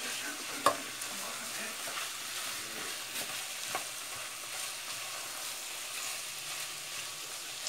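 Ground beef sizzling as it sautés in a nonstick pot, stirred and scraped with a silicone spatula: a steady frying hiss with a few short knocks of the spatula against the pot, the sharpest less than a second in.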